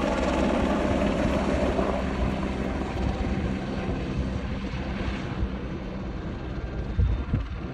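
Helicopter rotor and engine sound, steady and fading slowly as the helicopter flies away, with a brief thump near the end.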